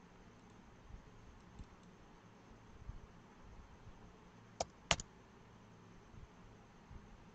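Two sharp clicks of computer keyboard keys, about a third of a second apart, as a two-digit value is typed in. Faint steady hiss with a few soft low knocks runs underneath.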